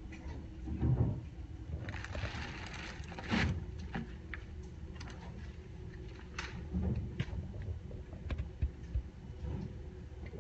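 Plastic bags and paper packaging rustling and crinkling as they are handled, loudest for a second or so about two seconds in, with scattered small clicks and knocks.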